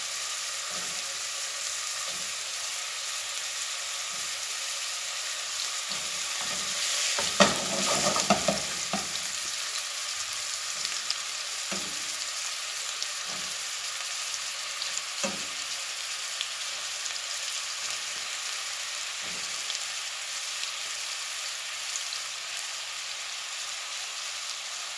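Kefta meatballs frying in hot olive oil in a pot: a steady sizzling hiss, with occasional short knocks as more raw meatballs are set into the oil. The loudest moment is a cluster of crackling and knocks about seven to eight seconds in.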